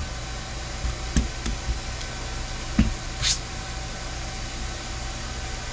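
Steady low hum and hiss of room noise, with a few light clicks about one to three seconds in and a brief high hiss a little after three seconds.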